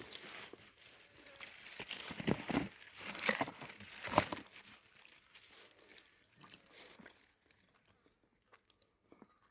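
Crackling, tearing and crunching of a roast chicken being pulled apart by hand. The sounds come thickest between about two and four and a half seconds in, then thin out and die away.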